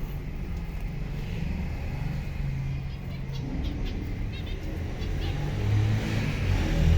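A few faint zebra finch chirps, about three to four seconds in, over a steady low rumble like passing traffic.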